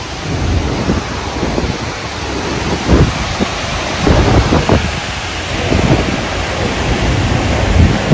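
Typhoon weather: heavy rain hissing steadily while strong wind gusts, buffeting the microphone in repeated low surges.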